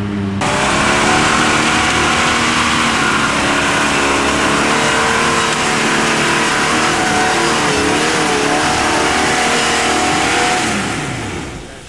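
Off-road Jeep's engine revving hard under full throttle as it climbs a steep dirt hill, wheels spinning and throwing dirt. The revs waver up and down, then drop and fade near the end.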